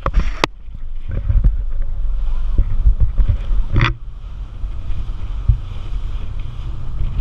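Wind rushing over the microphone on a moving motorboat, with a loud low rumble and a few sharp knocks, mostly near the start and one about four seconds in.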